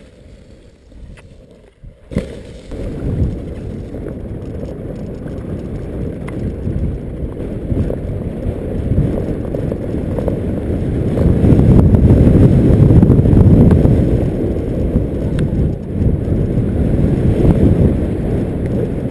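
Off-road mountainboard rolling fast down a rough grass track: a steady rumble of its tyres over the turf mixed with wind buffeting the microphone. It starts with a knock about two seconds in and grows louder toward the middle of the run.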